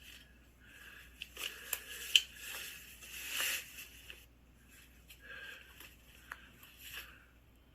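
Dry twigs and brush crunching and rustling, with a sharp snap about two seconds in.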